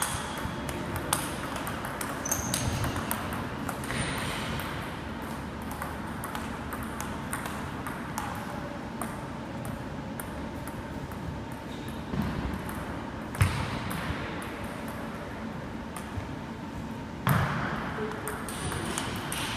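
A table tennis ball clicking back and forth off the paddles and table during rallies, with a few louder knocks.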